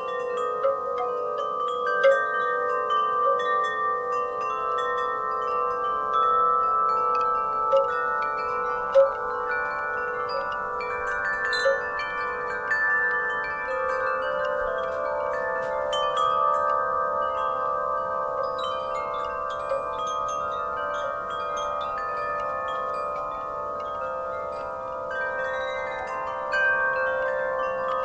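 Wind chimes ringing continuously in a breeze, many tuned tones overlapping and sustaining, struck again and again at irregular moments.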